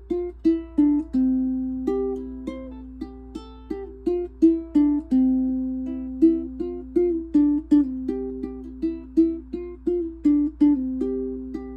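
Instrumental background music: a plucked-string melody of quick notes, each fading after it is plucked, over a sustained lower note.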